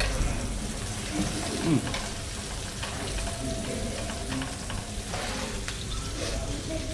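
Food sizzling on a hot tabletop grill: a steady frying hiss.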